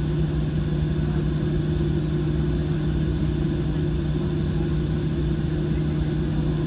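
Cabin noise of a Boeing 737-700 taxiing, its CFM56-7B jet engines at taxi power: a steady low rumble with a constant hum and a faint high whine.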